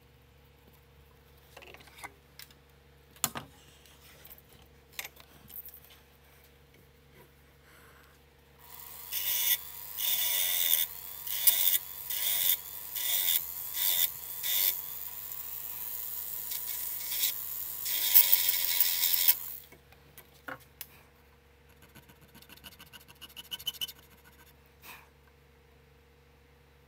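Checkering file scraping across a 1911 grip panel in quick strokes, about two a second, for around ten seconds in the middle, with a few light tool clicks before and after.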